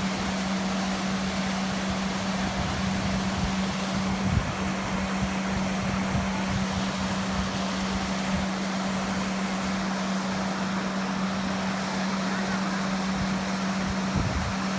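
A steady low hum, with wind buffeting the microphone.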